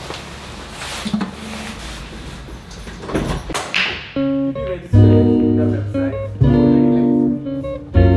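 Background music led by guitar, getting louder about four seconds in, when a strong bass line and sustained notes come in.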